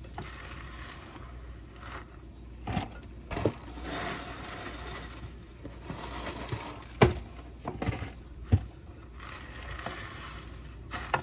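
A spoon stirring cereal through sticky melted marshmallow in a bowl: scraping and rustling, with a few sharp knocks of the spoon against the bowl.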